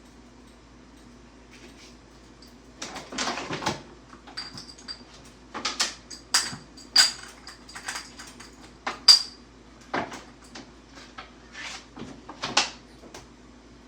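Dishes and utensils clattering: a string of knocks and clinks, several with a short ringing tone, the sharpest a little after nine seconds in, over a faint steady low hum.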